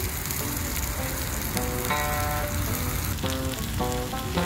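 Sliced pork belly sizzling as it fries on a round steel griddle over a wood-burning stove, with a steady crackling hiss. Notes of background music play over it now and then.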